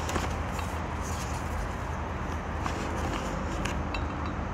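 Pages of a hardcover picture book being handled and turned: soft paper rustling with a few light clicks, the page flipping over near the end, against a steady low background hum.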